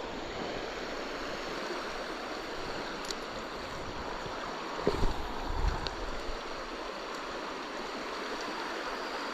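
Steady rush of a small creek's flowing water, with a few low thumps about halfway through.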